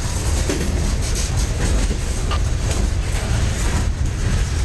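Freight cars (covered hoppers and open hopper cars) rolling past close by: steady noise of steel wheels running over the rails, with a few faint clicks.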